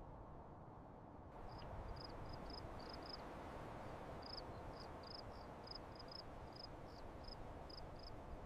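Outdoor ambience with a steady low hiss. A little over a second in, a short, high-pitched chirp begins repeating evenly, about three times a second.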